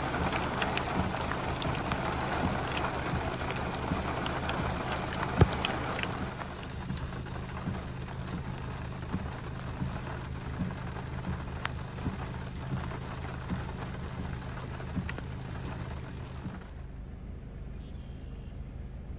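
Rain falling, with many sharp drop ticks, heavier for about the first six seconds and then easing, over a steady low hum.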